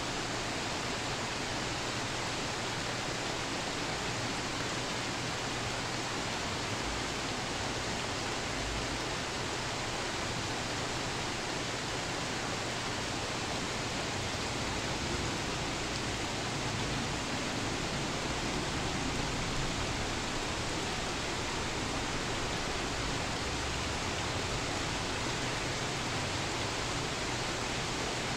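Heavy rain falling steadily in a storm, an even hiss that does not change.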